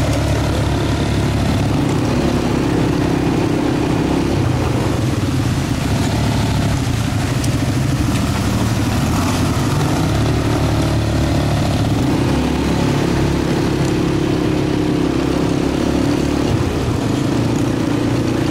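Quad bike (ATV) engine running steadily under way, with small rises and falls in pitch.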